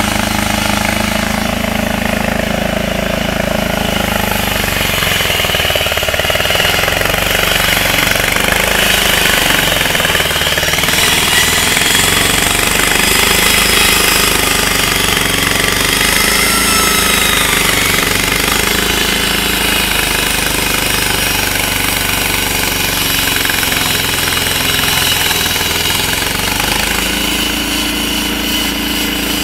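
Walk-behind concrete floor saw running steadily, its engine loud under load as the blade cuts through the pavement.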